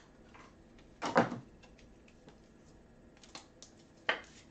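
Handling noise from cards and packaging on a desk: a sharp knock about a second in and another near the end, with a few light clicks between.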